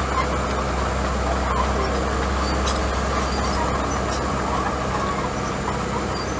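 Small crawler bulldozer's diesel engine running steadily as it pushes a load of gravel, with a few faint clicks over the hum.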